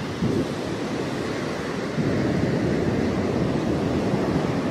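Wind rushing over the microphone with the wash of surf behind it: a steady noise that gets a little louder about two seconds in.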